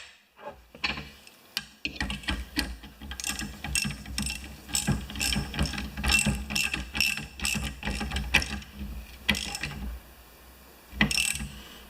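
Ratchet wrench clicking through repeated back-and-forth strokes, a few clicks a second, as nuts and washers are run down to draw the studs into a mower spindle hub.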